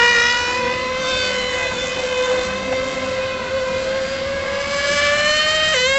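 Serpent 720 1:10 nitro touring car's small two-stroke glow engine running at high revs: a high-pitched whine whose pitch climbs slowly as the car accelerates, then dips briefly near the end before picking up again.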